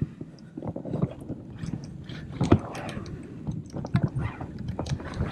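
Irregular small knocks, clicks and scrapes from a plastic fishing kayak and its mounted gear on the sea, over a low rumble, with the sharpest knock about halfway through.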